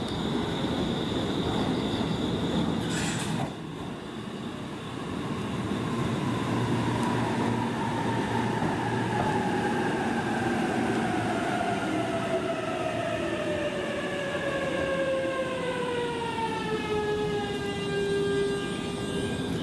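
JR East E233 series electric train pulling into the platform and braking to a stop. Its traction motor whine falls steadily in pitch from about six seconds in and settles near the end as the train halts, over steady wheel and running noise.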